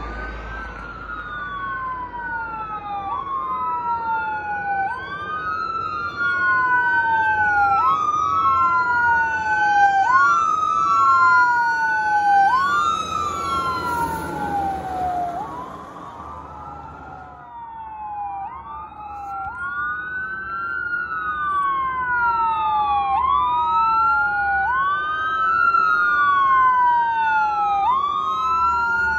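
Fire truck electronic sirens sweeping up and down in pitch, one cycle roughly every two seconds, two sirens overlapping. About halfway through, a fire truck passes close and its engine and tyre noise briefly swell under the sirens.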